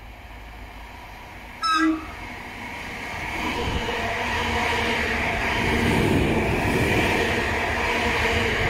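Electric multiple unit train sounding a brief horn blast about two seconds in, then its rumble and wheel noise growing steadily louder as it runs through the station at speed without stopping.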